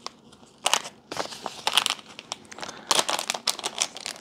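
Plastic packaging crinkling and crackling as it is handled and unwrapped, in irregular bursts that start about half a second in and grow denser and louder near the end.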